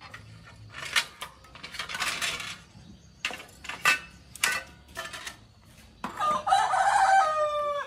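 Light metallic clinks from the spokes and hub of a bicycle wheel being handled, then a rooster crows for nearly two seconds near the end, the call falling in pitch as it closes.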